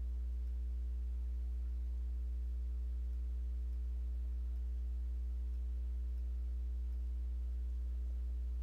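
Steady low electrical hum with a few fainter, higher overtone tones, unchanging throughout: mains hum picked up in the recording.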